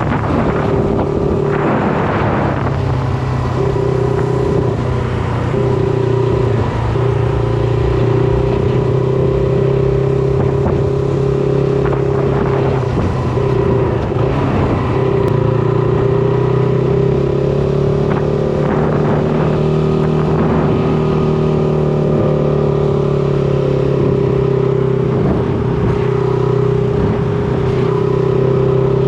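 Shineray SBM 250S motorcycle engine running at a steady pitch while riding along, with wind rushing over the microphone.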